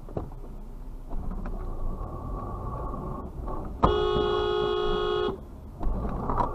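Car horn sounding one steady honk of about a second and a half, about four seconds in: a warning at a driver who fails to yield at the intersection. Low road and engine rumble from the moving car underneath.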